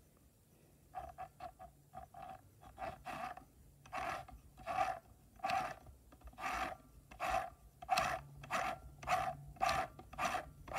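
A girl sobbing: short gasping crying breaths in a steady rhythm, starting about a second in and growing louder.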